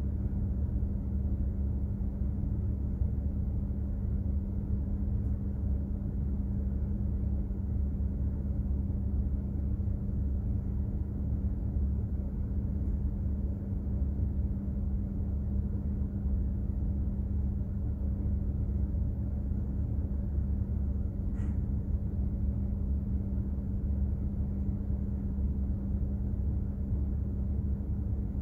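Container ship's engine and machinery heard aboard while under way: a steady deep rumble with a constant low hum.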